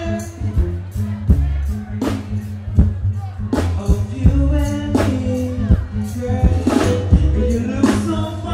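Live music played through large stage PA speakers: a backing track with a heavy bass line and sharp drum hits, with a man singing into a microphone over it.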